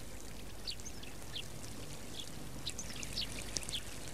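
Short, high chirps scattered irregularly, a few each second, over a steady background of tape hiss and low hum.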